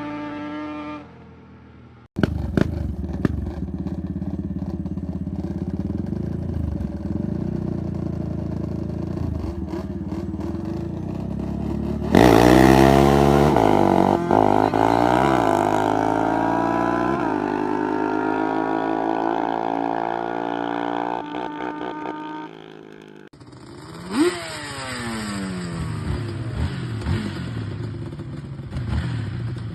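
Yamaha Banshee 350 quad's twin-cylinder two-stroke engine revving, across several clips with abrupt cuts between them. The revs are blipped up and dropped again and again, loudest from about halfway in.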